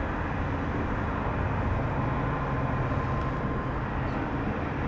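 Steady low rumble of outdoor background noise, like passing traffic, with no sudden events.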